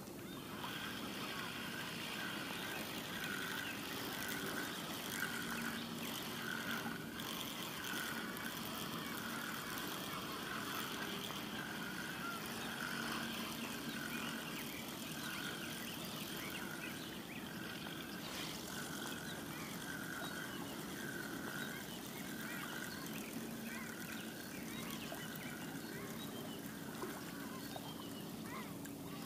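Outdoor lakeshore ambience: a short call repeats about once a second through most of the stretch, over a faint low hum and a soft higher haze.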